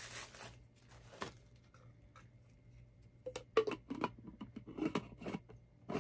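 Plastic wrapping crinkles briefly, then a double-walled tumbler and its lid knock and click together as they are handled and the lid is worked off, in several short knocks over the last few seconds.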